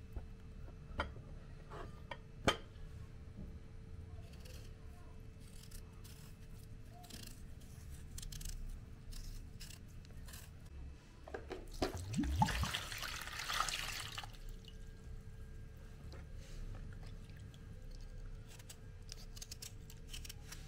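Small kitchen knife scraping and cutting the peel from a raw potato, with scattered light ticks of the blade. About twelve seconds in there is a short splash and slosh of water, as a peeled potato goes into a bowl of water.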